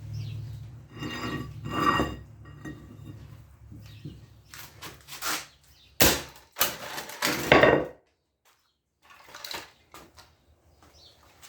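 A cheap humidifier being smashed: a series of knocks and crunches with pieces clattering, the sharpest impact about six seconds in. The sound cuts off suddenly soon after, leaving only a few faint knocks.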